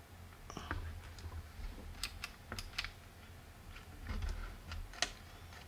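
Faint, scattered clicks and taps of fingers handling the opened plastic case and circuit board of a Radiomaster Boxer radio controller, the sharpest few about two to three seconds in and near five seconds.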